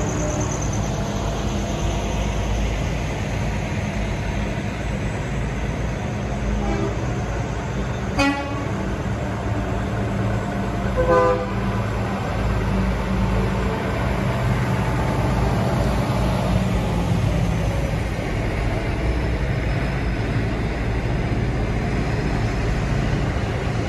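Semi trucks' diesel engines passing slowly in a steady low rumble, with two short air-horn toots, about 8 seconds in and about 11 seconds in.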